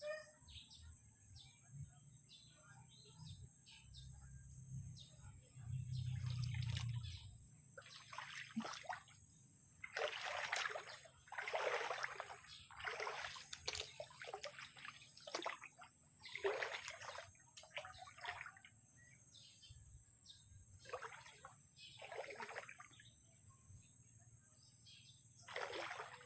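Water splashing and sloshing in about a dozen irregular short bursts, most of them from about eight seconds in, over a steady high-pitched hiss. A low rumble runs under the first seven seconds.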